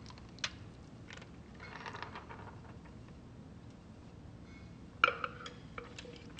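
Light kitchen handling sounds: a soft click, a brief rustle, and a sharp clink with a short ringing tone about five seconds in.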